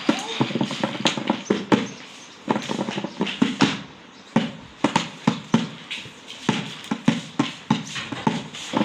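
Quick, irregular footsteps and taps on a hard tiled floor, several a second, from a child running in sandals.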